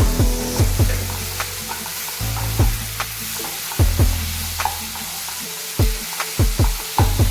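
A spoon scraping and knocking against a pan as food is stirred while it sizzles in hot oil, with sharp irregular strikes every second or so.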